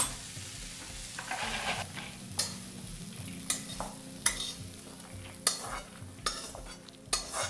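Stir-fried sprouts and vegetables being scraped out of a hot kadhai into a plastic bowl: a series of short scrapes and taps of a spatula on the pan, about one a second, over a faint sizzle.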